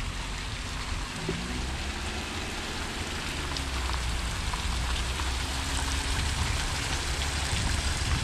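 Steady hiss of splashing water, with a low rumble underneath.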